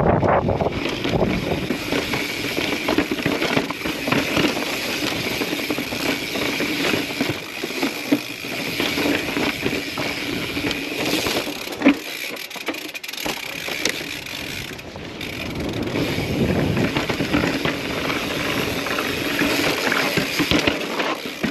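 Mountain bike riding over rocky sandstone trail: the bike and tyres rattle over the rock while the rear hub's freehub ratchets steadily during coasting. One sharp knock comes about twelve seconds in.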